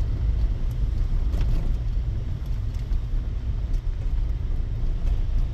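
Vehicle cabin road noise while driving on a gravel road: a steady low rumble of tyres and drivetrain, with a few faint ticks.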